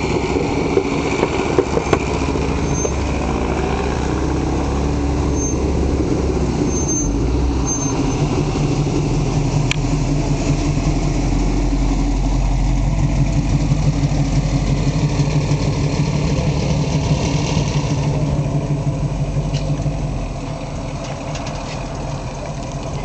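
Engines of cars driving slowly into a parking lot at low speed. A classic Chevrolet stepside pickup's engine runs close by in the middle, the loudest part, and the sound gets quieter about 20 seconds in.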